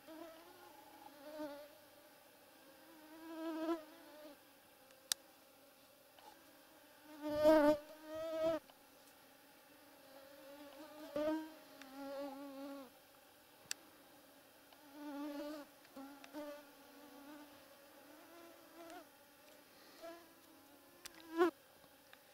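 Mosquitoes whining close to the microphone, the buzz swelling and fading again and again as they fly past. It is loudest about seven and a half seconds in, together with a dull knock. A few faint clicks are heard as well.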